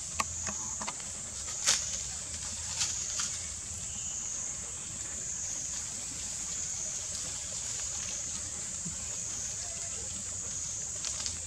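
Steady high-pitched outdoor hiss, with a few sharp crackles of dry leaves in the first few seconds as a long-tailed macaque shifts on the leaf litter.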